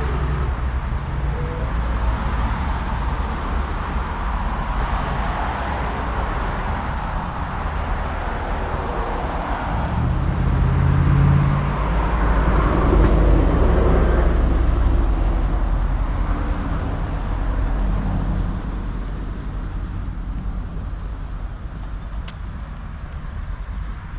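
Road traffic noise: a steady low rumble of a car's tyres and engine that swells about halfway through as a vehicle passes, then slowly fades.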